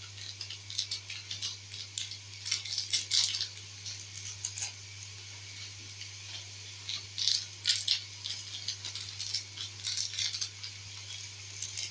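Maggi stock cubes being broken up by hand, with scattered light crackles and clicks coming and going over a steady low hum.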